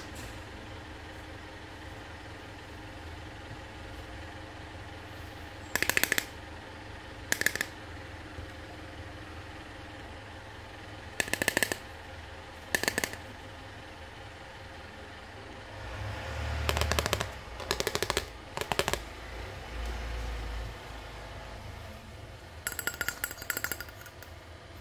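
Plastic toy kitchen pieces clicking and clattering in short bursts, about eight times, as they are handled and set down on a hard surface. A low steady hum runs underneath.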